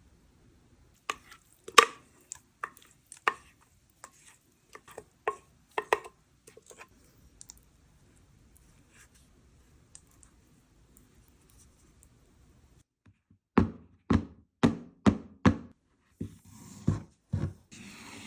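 Kitchen knife chopping on a cutting board: scattered light clicks and knocks, then a run of about five even, heavier chops a little over two a second. A few more knocks and a short hiss come near the end.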